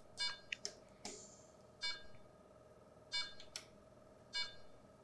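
Short electronic beeps from a CAIRE FreeStyle Comfort portable oxygen concentrator as its menu buttons are pressed: about four clear beeps spaced a second or so apart, with fainter ones between and a brief hiss about a second in, over a faint steady hum.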